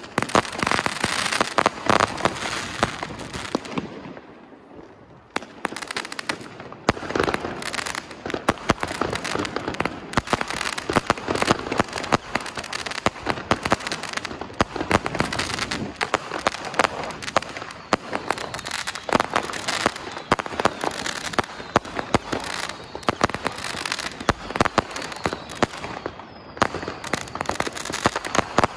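A 185-shot Weco Dreamcatcher firework battery firing shot after shot: a dense run of bangs and crackling from bursting shells, with a short lull about four seconds in.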